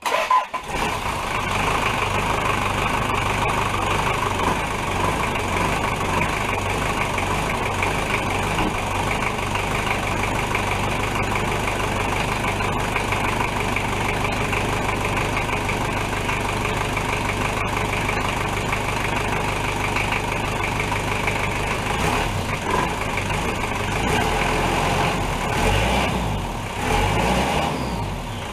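Toyota 3B 3.4-litre four-cylinder diesel with a TD05H turbocharger, running steadily. Near the end it is revved up a few times.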